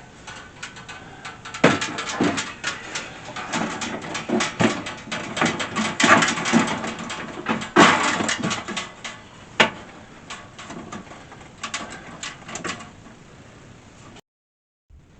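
Handling noises as a diesel air heater is put back together: irregular knocks, clatters and scrapes of its casing and parts, loudest about 2, 6, 8 and 10 seconds in, then fading to lighter taps.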